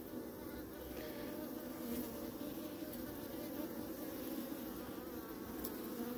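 Honey bees buzzing on an open brood frame: a steady hum made of several wavering pitches.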